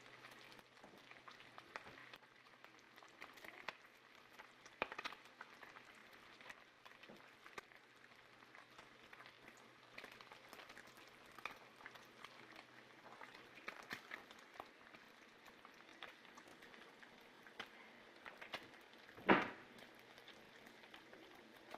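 Faint water pattering and trickling, with many small scattered drips and splashes, and one louder brief splash about nineteen seconds in.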